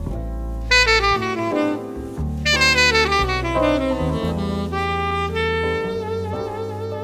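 Tenor saxophone playing a jazz solo in fast runs of notes, over double bass accompaniment.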